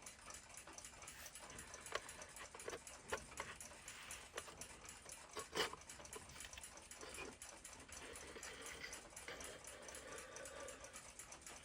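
Faint small clicks and taps of metal clock parts being handled, with a few louder knocks.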